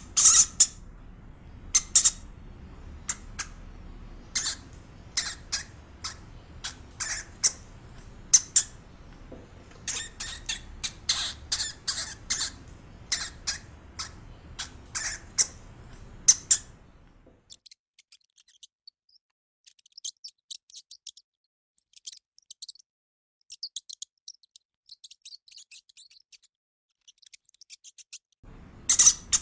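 Hamster squeaking: many short, high-pitched squeaks in irregular clusters. About two-thirds of the way through they become faint and thin, and loud squeaks return near the end.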